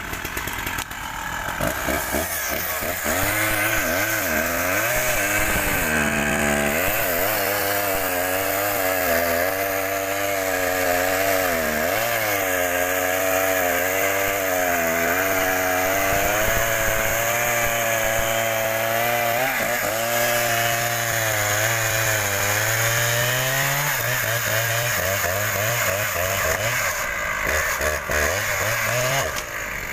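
Husqvarna chainsaw running and cutting into wood, its engine pitch rising and falling with the load.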